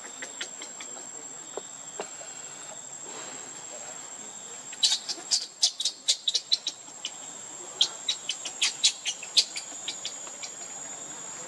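Baby macaque squealing in two bouts of rapid, sharp, high-pitched squeaks, about five seconds in and again near eight seconds. A steady high insect drone runs underneath.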